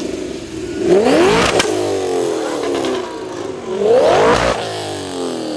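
A car's engine revved hard twice while driving off, each rev climbing quickly in pitch and then falling away as it drops back. The first rev ends with a sharp crack.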